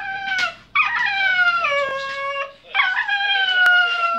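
Small dog howling to be fed: three long, high whining howls in a row, each sliding slowly down in pitch.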